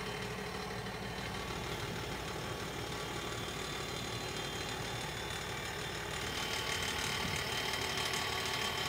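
Massey Ferguson 8S tractor's 7.4-litre AGCO Power diesel engine idling steadily, growing a little louder about six seconds in.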